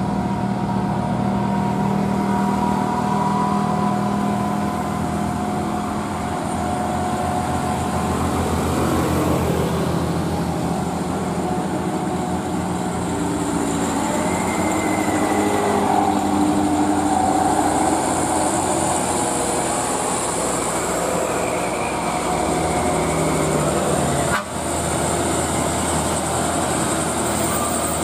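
Diesel engines of old, heavily loaded Mitsubishi Canter sand dump trucks pulling hard uphill through loud 'umplung' exhausts, a steady, heavy running whose pitch shifts slowly as the trucks climb, with a brief break near the end.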